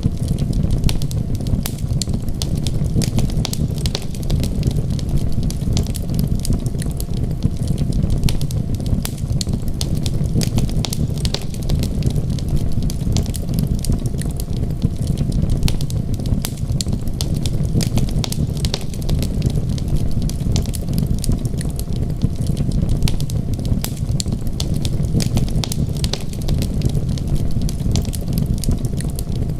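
Wood fire crackling in a fireplace, with many small sharp pops scattered throughout over a steady low rumble.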